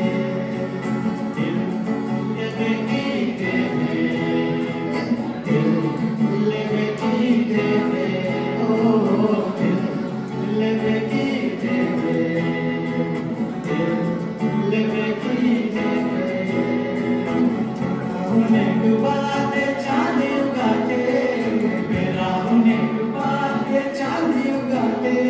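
Live Nagpuri song mashup sung by several voices together, accompanied by acoustic guitars and keyboard, playing continuously at a steady level.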